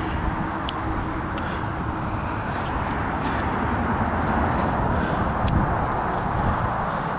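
Steady outdoor noise: wind buffeting the microphone over a constant wash of city traffic, with a few faint high clicks.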